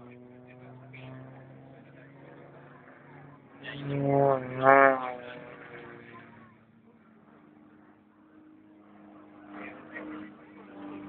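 A motor engine drones with a steady hum. About four seconds in it briefly gets much louder, its pitch dipping and rising. Near the end it rises in pitch and level.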